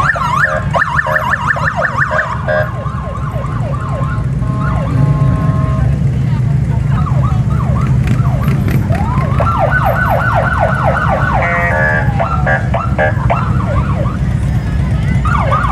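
Police motorcycle sirens sounding together in a fast yelp, rapid repeated up-and-down whoops, broken by a few short steady tones and a wail that rises about nine seconds in, over the low running of the motorcycles' engines.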